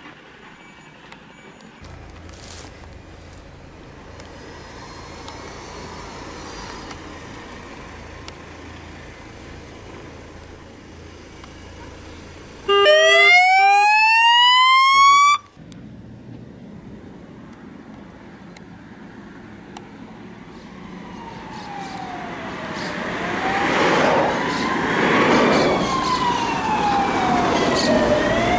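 Road traffic noise, then a police car siren gives one loud rising whoop lasting about three seconds, midway through. After that a fire truck's siren wails, rising and falling slowly and growing louder as it approaches.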